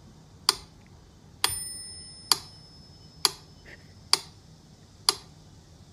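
Steady clock-like ticking, about one tick a second. About one and a half seconds in, one tick is followed by a bright bell-like ring that fades over about a second.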